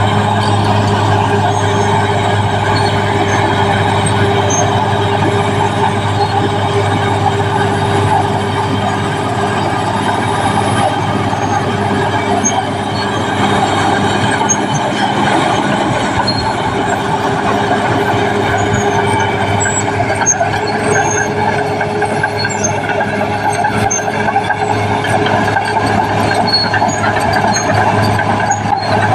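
Caterpillar D6R XL bulldozer's diesel engine running steadily while the machine works the ground, a constant low drone with little change in level.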